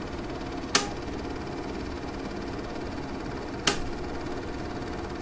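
Steady hiss and hum from the lead-in of an archived 911 call recording, broken by two sharp clicks, one about a second in and one near four seconds in.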